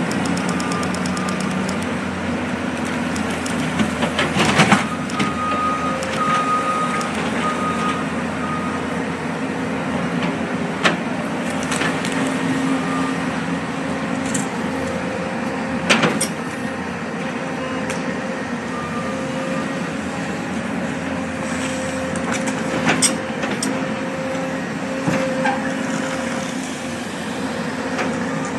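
Demolition excavator and loader diesel engines running steadily, with the excavator's steel bucket scraping and clanking on rubble in several sharp knocks. A backup alarm beeps at times.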